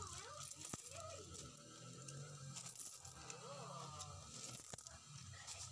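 Peso coins clinking a few times as they are handled, stacked and bagged, faintly, with distant voices in the background.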